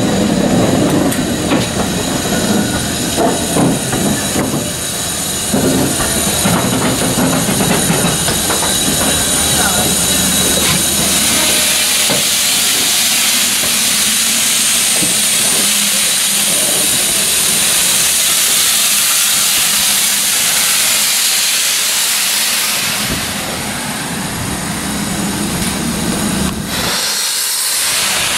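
GWR King class steam locomotive No. 6023 'King Edward II' blowing off steam, a loud steady hiss that is strongest through the middle, with low rumbling and some voices in the first several seconds.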